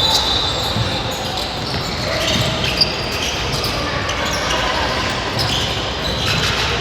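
Youth basketball game sounds: the ball bouncing on the court, short sneaker squeaks and a murmur of players' and spectators' voices in a gym.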